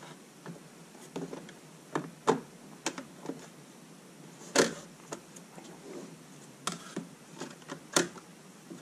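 Scattered light clicks and knocks of a plywood electronics sled and its wires being handled inside a wooden box, the loudest about four and a half seconds in and again near the end.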